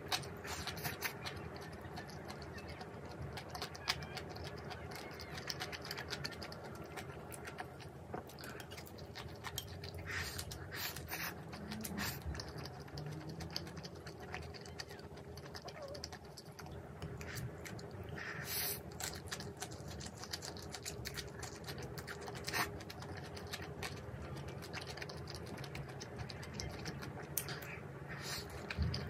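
A person eating close to the microphone: chewing and mouth sounds with scattered clicks and taps, over a faint steady hum.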